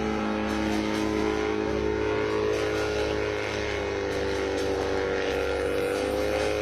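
Engine of a home-built helicopter running steadily, its pitch dipping slightly about halfway through and rising a little near the end.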